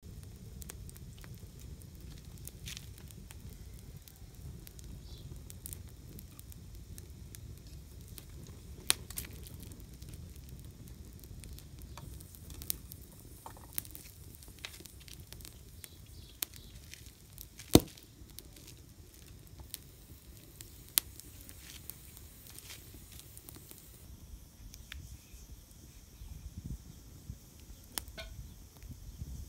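Open wood fire of twigs and branches crackling, with a steady low rumble and many sharp snaps and pops; one pop a little past the middle is much louder than the rest.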